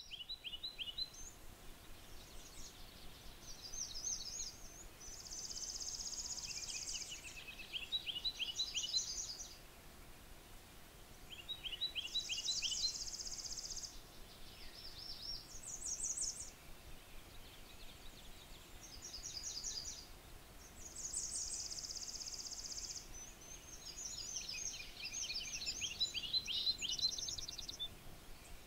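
Songbirds singing, several songs overlapping. A fast, even, high trill about two seconds long comes three times, roughly every eight seconds, with series of quick repeated notes from other birds in between.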